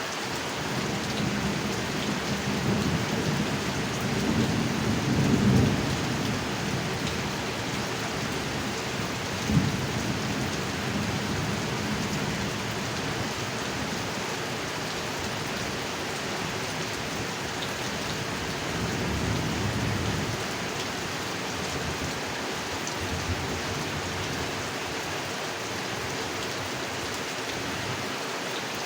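Steady heavy rain falling on a pond. Low rolls of thunder swell in the first few seconds, a short sharp thunder crack comes about ten seconds in, and a further rumble comes near twenty seconds.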